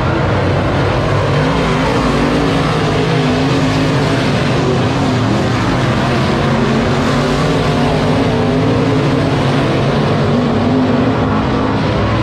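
Dirt late model race car engines running hard on a dirt oval, the engine pitch rising and falling again and again as the cars get on and off the throttle around the track.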